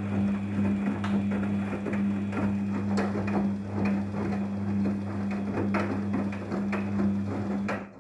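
Daewoo DWD-FT1013 washing machine running its drum during a Cotton 40°C wash: a steady motor hum with frequent clicks and rattles from the tumbling load, stopping abruptly near the end as the drum pauses.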